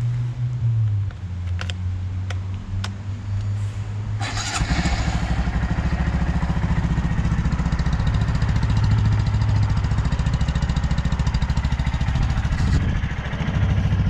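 A few sharp clicks over a low hum, then about four seconds in the Honda Monkey 125's air-cooled single-cylinder four-stroke engine starts and settles into a steady idle.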